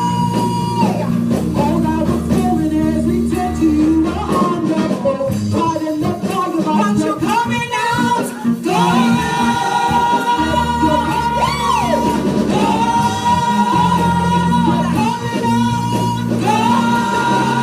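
Live gospel music from a church choir and band: voices singing over held bass notes that change every couple of seconds.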